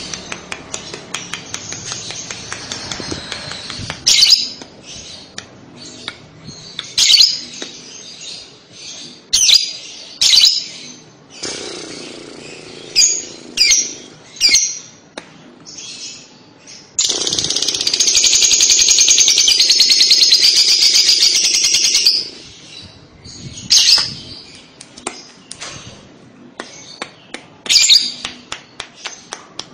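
Female Fischer's lovebird calling: short, sharp, shrill chirps repeated at uneven intervals. From about 17 seconds in comes a long unbroken chattering trill, the 'ngekek' song, lasting about five seconds and louder than the rest.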